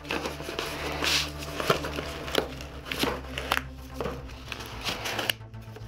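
Cardboard shipping box being opened by hand: cardboard flaps and packing tape rustling and scraping in a string of short crackles, over a steady low hum.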